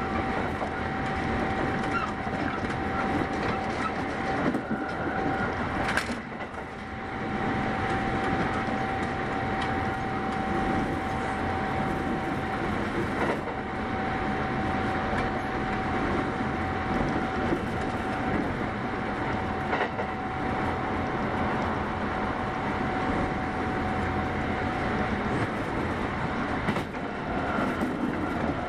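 Kintetsu 8810 series electric train running, heard from inside the car: a steady rumble of wheels on the rails with a thin steady whine over it and a sharp click about six seconds in.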